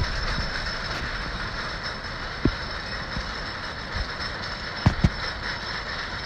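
Zippin Pippin wooden roller coaster train hauled up the chain lift hill: a steady mechanical rattle of chain and anti-rollback ratchet, with a few scattered louder knocks.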